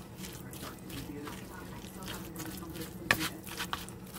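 A metal spoon stirring mayonnaise-dressed shredded chicken in a plastic container: wet squishing and spoon scrapes against the plastic, with a sharper tap about three seconds in.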